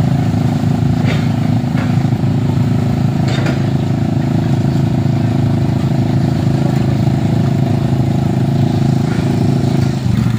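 Several motorcycle engines running at low, steady revs as the bikes ride slowly through deep mud, with brief faint voices.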